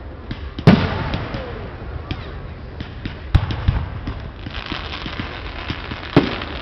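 Aerial firework shells bursting, with three loud sharp bangs (about a second in, about halfway, and near the end) over many lighter thumps, and a spell of crackling stars between the second and third bangs.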